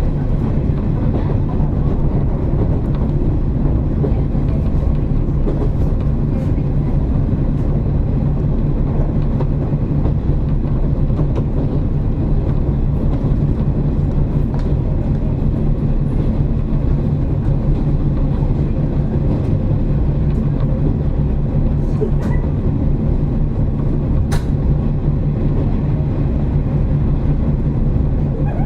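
KiHa 47 series diesel railcar under way: a steady low diesel engine drone at an even pitch over the rumble of wheels on the track. There is one brief sharp tick about 24 seconds in.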